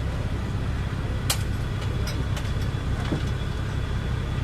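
A car engine running steadily with a low rumble, and a sharp click about a second in.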